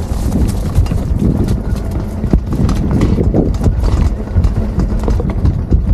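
Engwe Engine X electric fatbike climbing a steep slope under motor assist: its fat tyres rolling and the bike clattering over uneven ground in quick, irregular knocks, with wind rumbling on the microphone.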